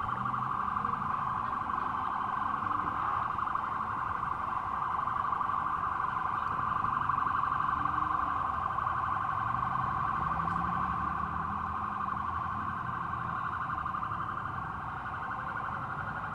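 A warbling electronic siren: one fast-pulsing tone held at a steady pitch, sounding without a break and cutting off suddenly at the very end, with fainter low sounds beneath.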